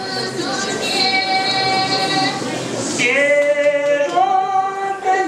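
Group of young students singing a song in long held notes; a new phrase starts sharply about three seconds in.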